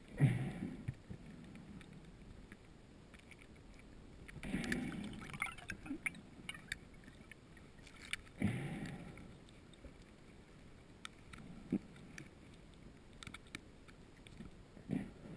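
Scuba diver's exhaled breath bubbling out of the regulator underwater, a rumbling gush about a second long roughly every four seconds, with faint clicks in between.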